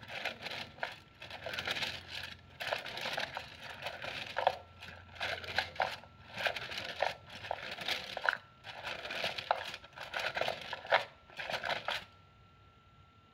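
Flat fortune sticks clattering against each other and the rim of their cylinder as a hand stirs and shuffles them, in quick irregular bursts of rattling and clicks. The rattling stops suddenly about a second before the end.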